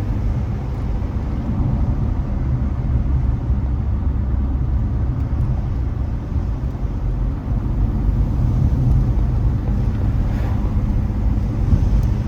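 Car engine hum and road noise heard from inside the cabin while driving, steady throughout.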